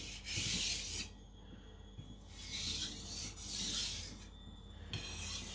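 A nakiri blade of Niolox steel stroked across a coarse JNS 300 whetstone: four separate scraping strokes, each under a second, with short pauses between. Light-pressure strokes to shear off and weaken the burr raised on the edge.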